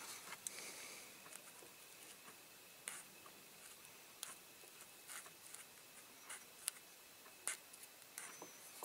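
Faint, scattered small clicks and scratches of fingers handling a masked diecast model car body and picking at the edge of the masking tape.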